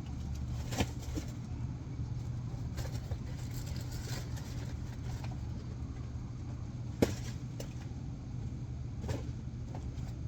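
Steady low hum of a car idling, with scattered knocks and bumps as boxes of snacks are shifted around inside the car; the sharpest knock comes about seven seconds in.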